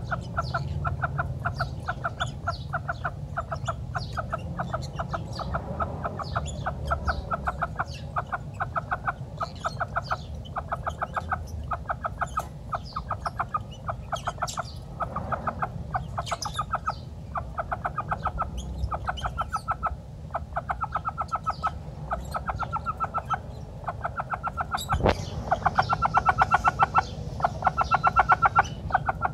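Aseel hen clucking in quick runs of short clucks, a burst about every second, growing louder over the last few seconds. Small birds chirp faintly in the background.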